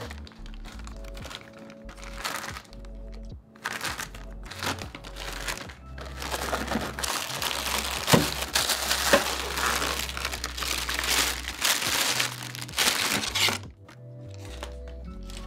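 Plastic packaging wrap crinkling as a camera body is pulled from its box and unwrapped: a few short rustles at first, then steady crinkling from about six seconds in that stops shortly before the end. Soft background music plays throughout.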